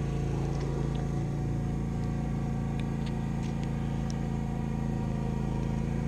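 A motor running with a steady low hum, with a few faint ticks over it.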